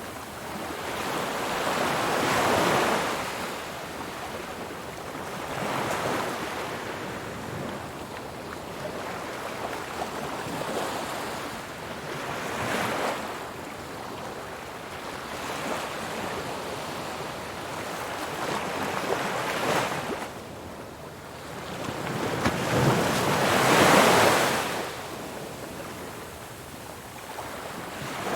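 Ocean waves breaking and washing in, each surge swelling and falling away every few seconds, with the biggest wave near the end.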